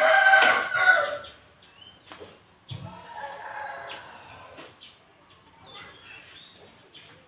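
A rooster crowing, loudest at the start, with a second, fainter crow about three seconds in.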